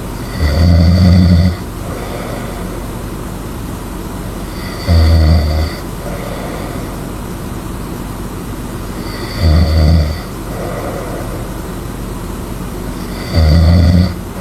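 A person snoring loudly: four low snores, each about a second long, one every four seconds or so, over a steady background hiss.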